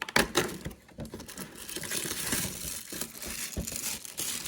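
Plastic wrapping crinkling and tearing as a small toy package is opened, with a run of small irregular rustles and clicks.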